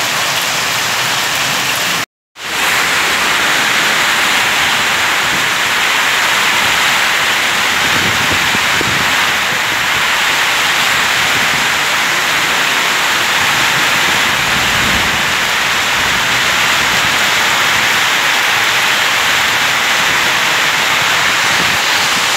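Heavy hailstorm: hail pelting down as a dense, steady hiss. It cuts out for a moment about two seconds in.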